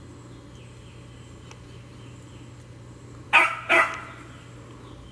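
A beagle barks twice in quick succession, a little over three seconds in.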